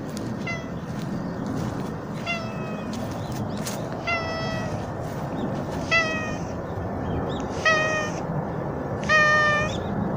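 A stray cat meowing repeatedly at the person filming: six separate meows about two seconds apart, the last three louder and longer.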